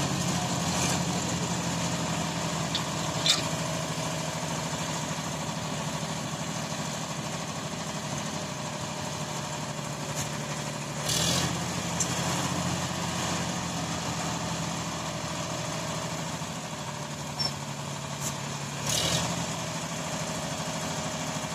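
Sonalika tractor's diesel engine running steadily while its hydraulic lift tips the loaded trailer bed. A sharp knock sounds about three seconds in, and the sound swells briefly twice, about eleven seconds in and near the end.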